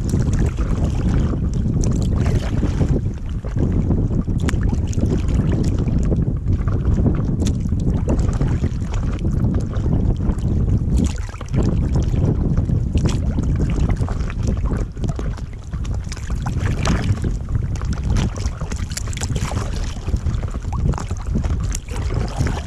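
Wind buffeting the microphone of a camera mounted low on a kayak, a steady low rush, with water lapping and slapping against the kayak's hull in many small irregular splashes.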